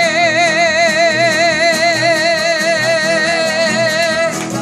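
A woman singing one long, high held note with a wide, even vibrato, the final note of the song, over guitar accompaniment; the note breaks off near the end.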